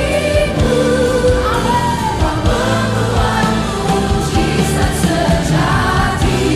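Christian worship song sung by a group of voices in choir style over full band accompaniment.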